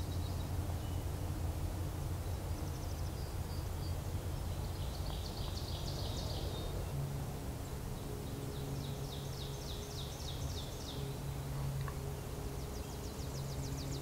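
A small songbird singing a high, rapid trill, four times with pauses between, over a steady low background rumble.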